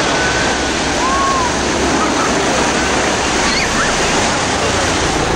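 Steady rush of ocean surf on a beach, with a few faint voices.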